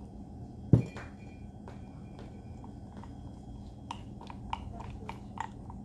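One heavy thump about a second in, then a run of light clinks, about three a second, as a small spoon stirs lemon juice into powdered sugar in a glass jar to mix icing.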